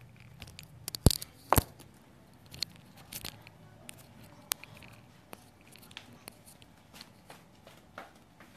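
Handling noise from a phone held close to its microphone: irregular taps and clicks, with two louder knocks about a second and a second and a half in.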